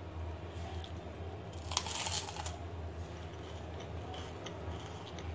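Crisp fried tube papad (nalki papad) stuffed with spiced mashed potato, snapped apart by hand: a short crackling crunch about two seconds in, over a low steady hum.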